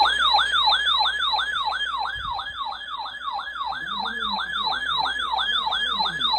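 Electronic siren in a fast yelp, its pitch sweeping up and down about three times a second, stopping abruptly at the end.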